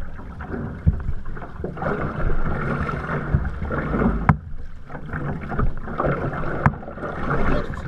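Water splashing and sloshing around the hull and float of an OC1 outrigger canoe under paddle strokes, with a few sharp slaps or knocks.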